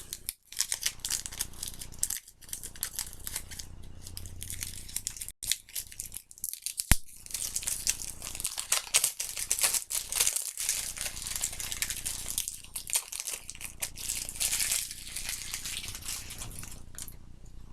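Plastic wrapping being peeled and crinkled off a deck of playing cards, an irregular run of crackles and small clicks.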